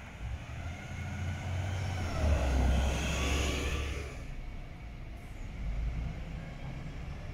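A diesel city bus, a VDL Ambassador, passes close by. Its engine drone and tyre noise swell to a peak about three seconds in and are cut off suddenly just after four seconds. A fainter low rumble of an approaching bus follows.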